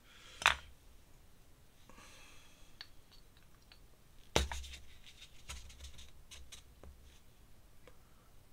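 Ink painting with a brush: faint scratching of the brush on paper and sharp taps of the brush against the ink pot, a small one about half a second in and a louder one with a dull knock about four seconds in.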